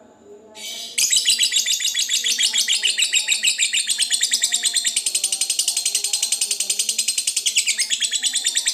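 Lovebird giving its long 'ngekek' chatter, the extended trill prized in contest lovebirds: a loud, rapid, unbroken run of high chattering notes, about ten a second, starting about a second in.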